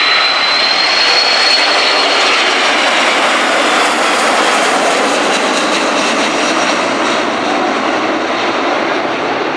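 Boeing E-3D Sentry's four CFM56 turbofan engines on a low flypast, a steady loud jet rush as the aircraft passes and moves away. A high fan whine sits over the rush at first and fades out about two seconds in, and the noise eases slightly near the end.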